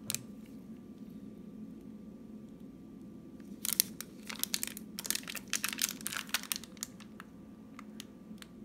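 Clear plastic coin capsules and their tube being handled in gloved hands. There is one click at the start. Then, from about three and a half seconds in, come three seconds of crinkly plastic clicking and rubbing as the capsules slide and knock together.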